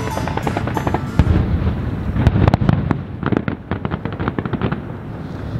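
Aerial fireworks exploding: deep booms about a second in, then a long run of rapid crackling pops from the bursting shells.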